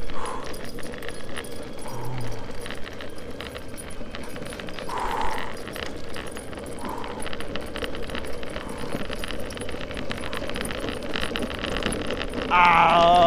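Boosted electric skateboard rolling over rough asphalt: a steady rumble with constant rattling and clinking from the board and the dog's leash and harness. Near the end comes a loud wavering moan lasting about a second and a half.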